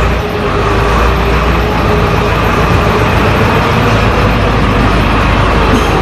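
Diesel engine of an XD926G 2-ton wheel loader running steadily under load as the machine drives with a stack of lumber on its forks.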